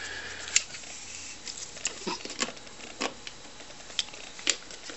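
Handling noise: a series of sharp, light clicks and taps at uneven intervals, with the loudest about half a second in, as a mains plug is worked into a wall socket and the handheld camera is moved around.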